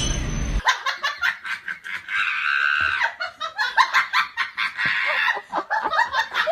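A person laughing hard in rapid, choppy bursts, after a short bit of music that cuts off about half a second in.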